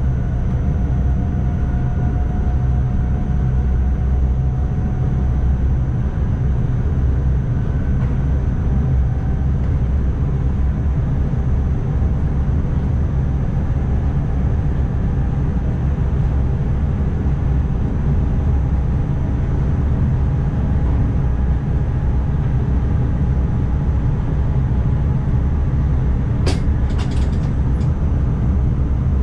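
NS ICMm electric intercity train running at speed, heard from the driver's cab: a steady, loud low rumble with faint tones that drift slowly in pitch. A few sharp clicks in quick succession near the end.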